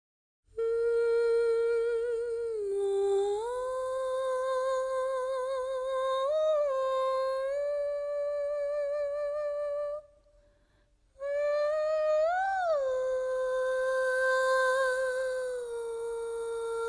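A woman humming a slow wordless melody in long held notes with vibrato, stepping up and down in pitch. It breaks off for about a second near the middle, then returns with a swell up and back down in pitch.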